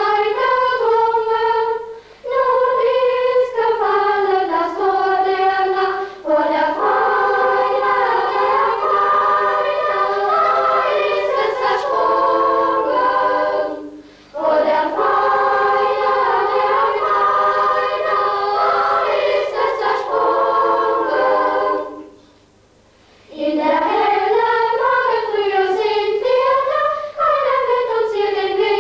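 Choir singing a song in melodic phrases, breaking off briefly between phrases, with a longer pause about 22 seconds in.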